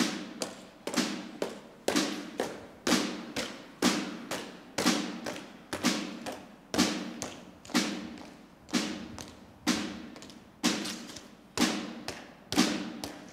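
Side drum struck in a slow, steady beat, about two strikes a second, each a sharp hit with a short ring, keeping time for a slow march.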